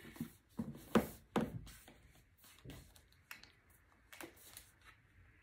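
Handling of a laptop's cardboard retail box and the laptop inside it: a handful of light knocks and taps, with soft rubbing of hands on cardboard and the laptop's lid.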